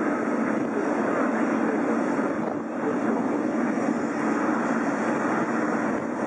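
Boeing 777-300 twin-engine jet airliner on final approach, its engines giving a steady rushing noise.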